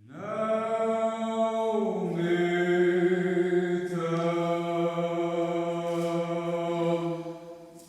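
Vocal toning: long held, wordless sung notes. The pitch steps down about two seconds in and shifts again around four seconds, and the sound fades out near the end.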